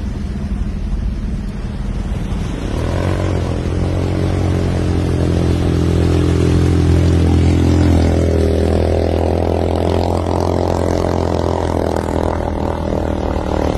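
A vehicle's engine running at steady revs as it drives through floodwater, coming in about three seconds in over a rushing noise of water and wind.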